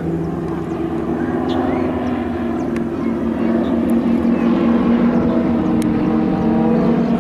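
Propeller aircraft engines droning overhead as two North American AT-6D Texans, each with a nine-cylinder radial engine, climb in formation alongside an Extra 300 aerobatic plane. The drone is steady and grows a little louder, and some of its tones bend in pitch in the second half.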